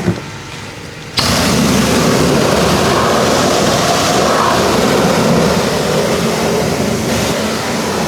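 High-pressure washer switching on about a second in and spraying steadily: a loud, even rush of pump and water jet.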